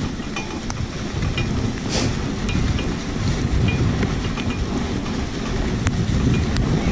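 Dog sled running over a packed-snow trail: a steady rumble and scrape from the runners, with light scattered ticks and rattles.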